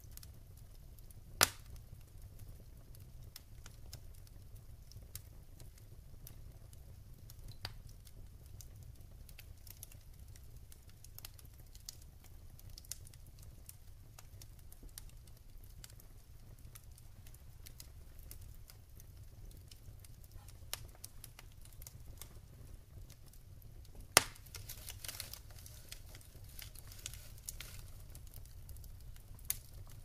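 Logs burning in a fireplace, crackling with scattered small pops over a low steady rumble. Two sharp, loud pops stand out, one about a second and a half in and one about six seconds before the end, the second followed by a few seconds of denser crackling.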